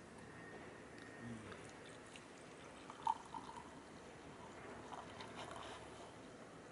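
Coffee poured from a glass server into a ceramic mug: a short sharp splash about three seconds in as the stream reaches the cup, then a faint trickle.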